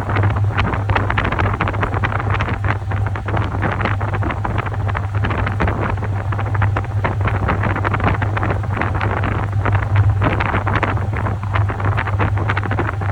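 Top-loading washing machine running: water churning and splashing irregularly in the tub over a steady low motor hum.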